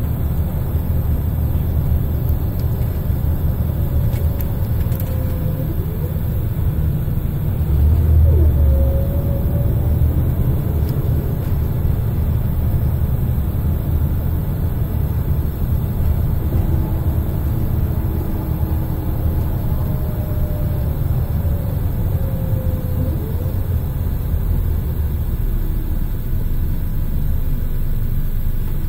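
Scania L94IB bus heard from inside the cabin while driving: the DC9 diesel runs with a steady low rumble that surges about 8 seconds in. A fainter whine from the ZF Ecomat 5HP600 automatic gearbox rises and falls several times.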